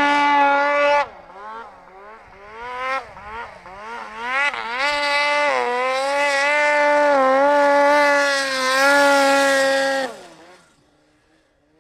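Turbocharged Polaris 800 Dragon snowmobile's two-stroke twin at high revs, dropping off about a second in, then blipped up and down several times in quick revs. It then pulls steadily at full throttle for about five seconds before the throttle is shut about ten seconds in and the engine note fades away.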